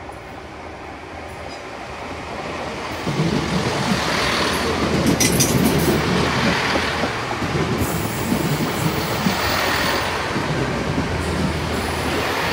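Chiltern Railways Class 165 diesel multiple unit drawing into the platform and rolling past: a diesel hum grows louder over the first few seconds as it arrives alongside, then the wheels clatter over the rail joints in a rough rhythm. A brief high wheel squeal comes about five seconds in.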